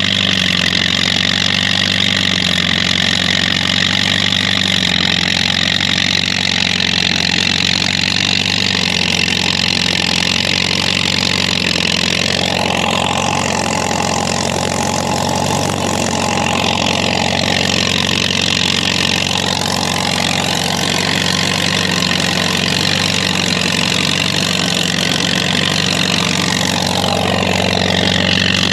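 Engine running steadily with a constant low hum. A higher whine glides down and back up about halfway through and again near the end.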